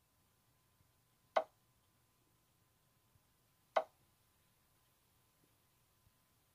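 Chess board software's piece-move sound: short sharp clicks, one about a second and a half in, another about two and a half seconds later and a third at the very end, each marking a pawn being placed. Behind them is a faint steady tone.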